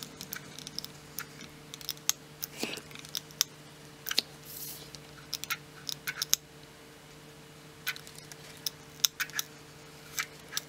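Hot glue gun clicking irregularly as its trigger is squeezed to run a bead of glue around a cardboard circle, with a faint steady hum underneath.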